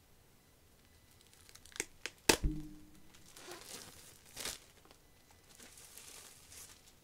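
Clear plastic shrink wrap being torn and crumpled off a hardcover book: crinkling rustles with a few sharp clicks and one loud thump a little over two seconds in.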